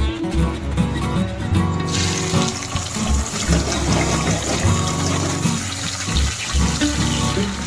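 Water running steadily from a tap, starting about two seconds in and stopping near the end.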